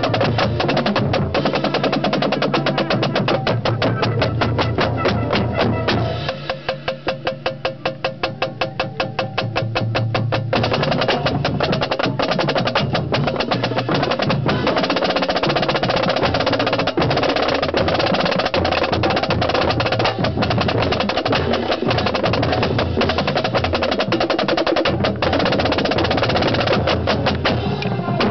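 Marching snare drum played right at the microphone, within the drumline: fast rolls and strokes. About six seconds in it drops to softer, evenly spaced taps, about four a second, then builds back to full volume around ten seconds in.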